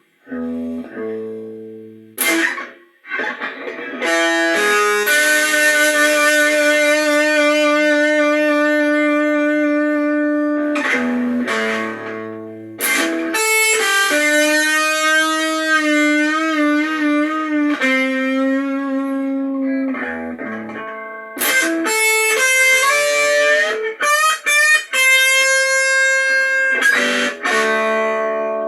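Blues played on guitar: short plucked notes at first, then long held notes, some of them bent and wavering in pitch.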